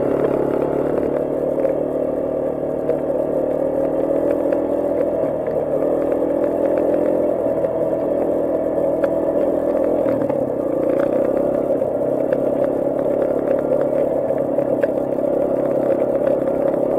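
Sport quad's engine running under way, its pitch dipping and picking back up a few times with the throttle, with a few light clicks and rattles.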